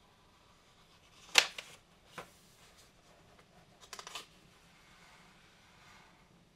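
Pages of a paper instruction booklet being turned and smoothed flat by hand. A sharp paper snap about a second and a half in is the loudest sound, with a softer rustle after it, then a short cluster of paper crackles around four seconds in.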